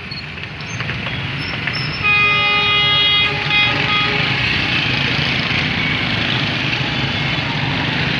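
Passenger train's diesel locomotive sounding its air horn: one long blast about two seconds in, then two short toots. After the horn, the steady rumble of the approaching train carries on.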